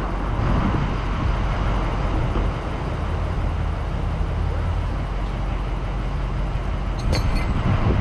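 Tow truck's engine running steadily as its winch drags a pickup truck backward off a hump. A sharp click about seven seconds in.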